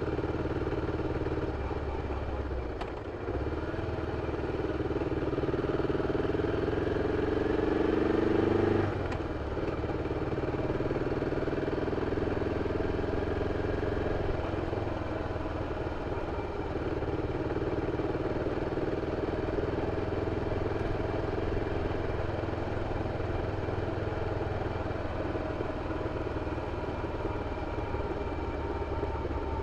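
BMW F 650 CS Scarver's single-cylinder engine through its original exhaust, running under way. After a brief dip about three seconds in, the pitch climbs for several seconds, drops sharply about nine seconds in, then settles to a steady run.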